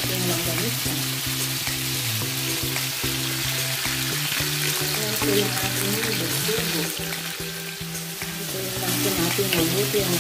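Steady sizzle of frying in hot oil, first whole bisugo fish in a shallow pan, then chopped longganisa stirred with a spatula near the end. Background music with held low notes plays underneath.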